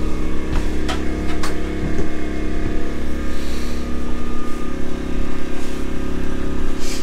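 Portable generator running steadily outside the RV, a constant engine hum. A few light knocks in the first second and a half.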